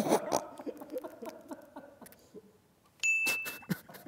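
Soft, fading chuckling, then about three seconds in a short electronic ding: the scoring sound effect marking a point won because the other player laughed.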